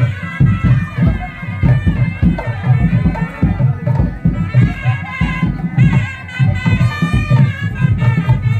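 Traditional folk music: drums beaten in a fast steady rhythm with a shrill reed pipe playing a wavering melody over them.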